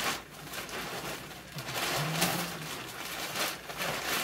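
Large black plastic trash bag rustling and crinkling as it is shaken open and pulled down over a person's head.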